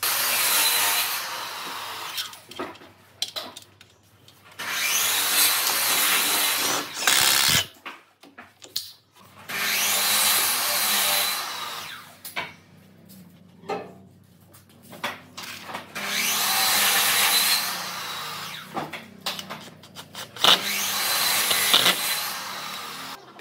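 Cordless drill driving screws into pine boards, in five runs of about two seconds each, with short knocks and clicks of wood handling between them.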